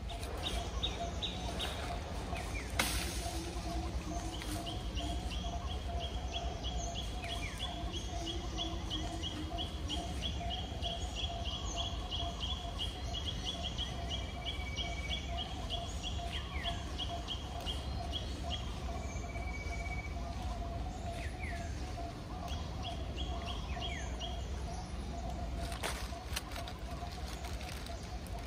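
Forest birds calling, one giving a long run of quick repeated high notes, about three a second, for some fifteen seconds, with short falling chirps from others. Beneath them runs a steady pulsing hum over a constant low rumble.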